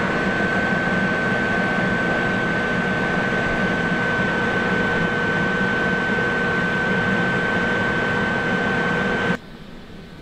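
Electric train noise: a steady, loud rumble and hiss with a steady high whine over it, cutting off suddenly near the end.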